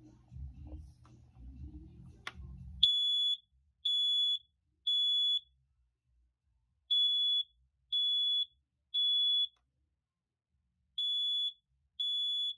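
First Alert 9120B smoke alarm sounding its alarm: loud, high-pitched beeps of about half a second each in the temporal-three pattern, three beeps, a pause, three more, a pause, then two more near the end. Before the beeping starts there is handling rumble and a sharp click about two seconds in.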